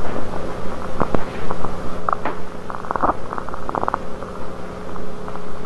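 Steady low electrical hum under irregular crackling and clicking: glitchy, distorted-recording audio.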